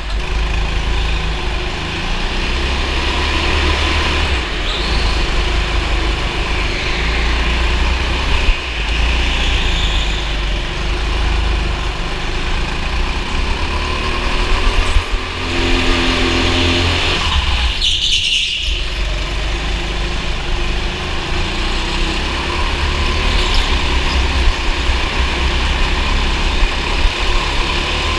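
Go-kart engine running under race load, revving up and easing off again and again, over a steady low rumble. A brief hiss comes about two-thirds of the way through.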